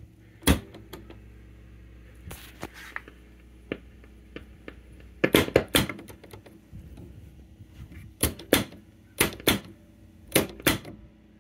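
Sharp plastic clacks of a Grundig Majestic console radio's piano-key band-selector buttons being pressed, singly and then in quick pairs, over a faint steady low hum. No station comes through: the set is still dead after recapping.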